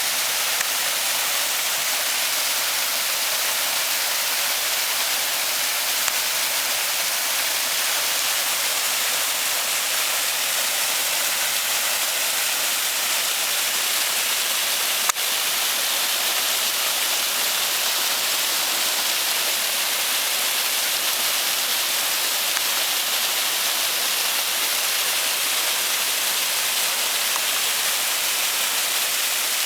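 Waterfall: a steady, even rush of falling water, with a single click about halfway through.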